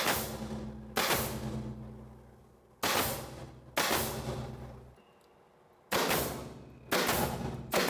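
Nail gun firing seven times at uneven intervals about one to two seconds apart, driving nails to fix a board onto wooden framing. Each shot is a sharp crack that rings on and dies away over about a second.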